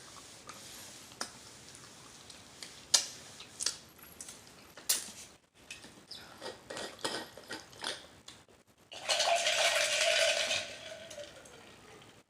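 Scattered clicks and light clatter of utensils and a food container being handled, then about nine seconds in a louder rushing sound with a steady tone in it, lasting about a second and a half.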